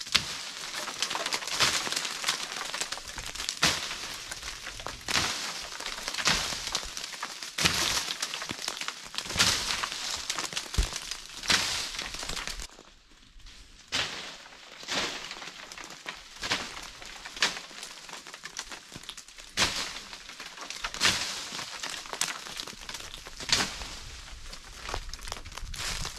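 Dry oak leaves and twigs rustling and crackling in repeated bursts, about one a second, with sharp snaps among them.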